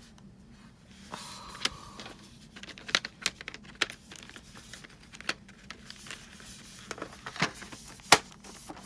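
Handling a metal pencil tin of Spectrum Noir ColourBlend pencils: the lid is opened and closed amid scattered clicks and taps of metal, with the sharpest click near the end.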